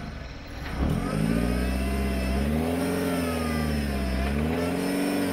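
Off-road buggy's engine revving up sharply about a second in, then its pitch rising and falling several times under load as the stuck buggy strains in a muddy rut.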